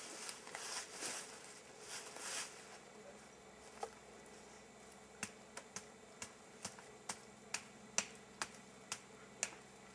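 Wooden shelter poles being lashed together by hand: some rustling at first, then from about halfway through a run of sharp clicks, about two a second.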